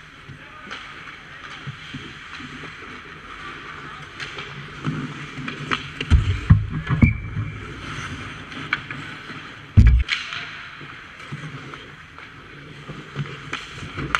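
Ice hockey skates scraping and carving the ice close in front of the goal, with sharp stick clicks. A cluster of heavy thumps comes about six to seven seconds in and another near ten seconds as play crashes around the net and the goalie drops to the ice.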